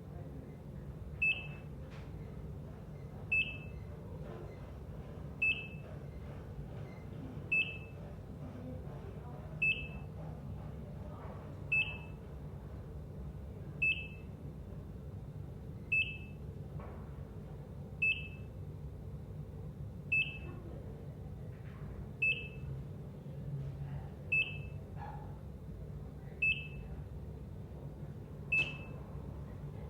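ECG heart monitor beeping: a short, high, single-pitch beep about every two seconds, at an even pace, over a steady low hum.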